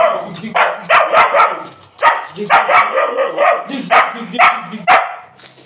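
Young German Shepherd barking over and over, about two short, sharp barks a second.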